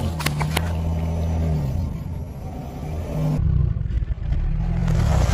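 A car's engine running low and steady as the car creeps forward over objects, with a few sharp pops and splashes in the first half-second as water-filled balloons burst under the tyre.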